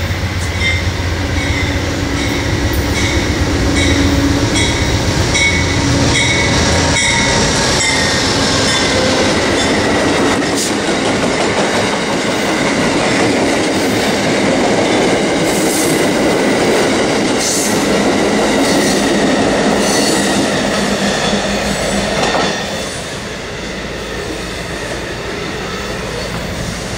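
Amtrak passenger train led by a GE P42DC Genesis diesel locomotive passing close by. The locomotive's diesel engine is heard first, then the passenger cars rolling past with wheels clicking over rail joints and some wheel squeal. The sound drops off about 22 seconds in as the last car goes by.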